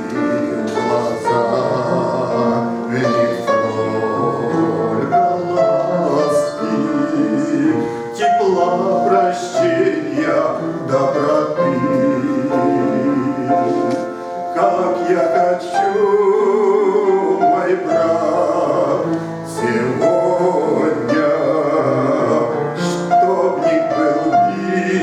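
A hymn sung by a man with vibrato, over instrumental accompaniment.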